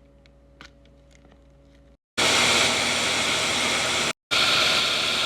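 Faint hum and a few light ticks, then about two seconds in a blender starts running on high, a loud even whirr, with a brief break near the middle. It is churning heavy cream that has not yet separated into butter and buttermilk.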